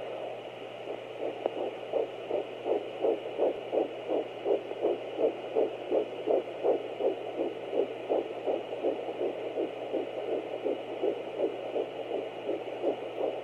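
Fetal heartbeat at ten weeks' gestation, played through the Doppler speaker of an ultrasound scanner. It is a rapid, even whooshing pulse of nearly three beats a second, over a steady hum. The beats come in about a second in.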